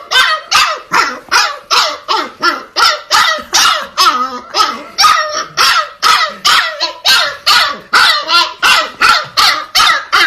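A dog barking over and over in a steady, fast run of short, high yaps, about three a second.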